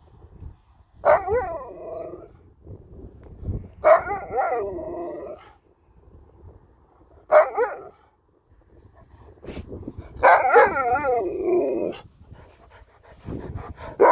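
Alaskan Malamute "talking": four drawn-out woo-woo calls that waver up and down in pitch, a short one in the middle and the longest near the end. It is the breed's chatty grumble at the person, rendered in the captions as "get ball".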